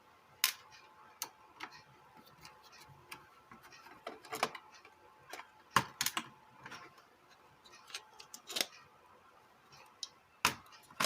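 Scattered, irregular sharp clicks and taps of tools and small plastic parts being handled on a workbench while a Bluetooth speaker is opened up for repair.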